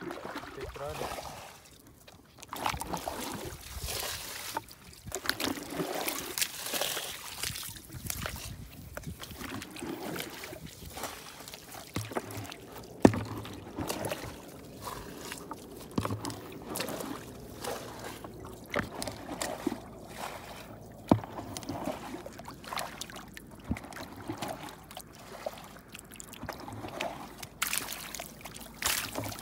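Water trickling and sloshing along a shallow, muddy rainwater channel, with irregular splashes from fish thrashing in it and a couple of sharp knocks in the middle.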